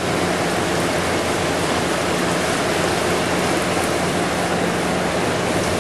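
Heavy rain pouring down in a steady downpour.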